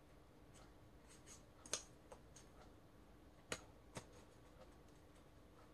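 A few faint, sharp snips of small children's scissors cutting folded green colored paper, three of them clearer than the rest.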